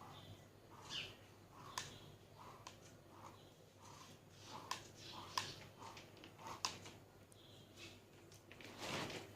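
Faint wet squelching and a few sharp light clicks as thick lemon-and-sugar syrup with grated peel is worked through a sieve, with a short rush of liquid near the end.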